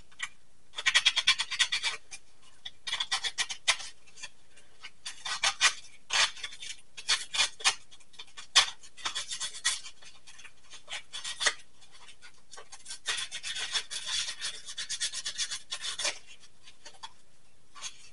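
Sandpaper rubbed over cast resin pieces in quick back-and-forth scratchy strokes, coming in bursts with short pauses between them.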